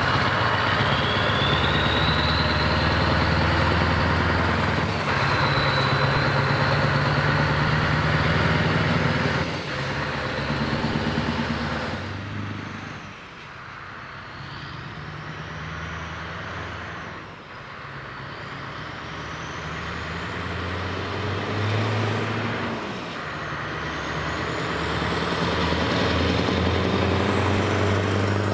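Scania R620's V8 diesel with an open, straight-through exhaust, running with a deep, steady engine note as the truck and trailer pull away and drive past. The engine sound drops away about twelve seconds in, leaving quieter road noise, then builds up again toward the end.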